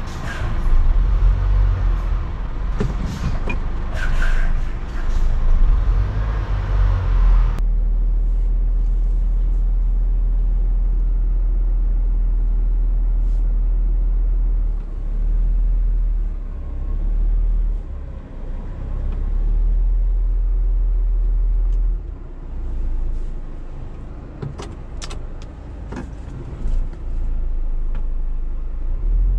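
Scania R410 truck's 13-litre six-cylinder diesel engine running hard under load, heard from inside the cab, as the truck tries to climb away in a higher gear on snow. A noisy hiss over the engine for the first several seconds cuts off suddenly. The engine then surges and drops back several times, with a few sharp clicks near the end.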